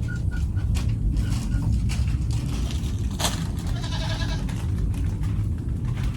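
A goat bleating once, a wavering call lasting about a second, about three and a half seconds in, over a steady low rumble.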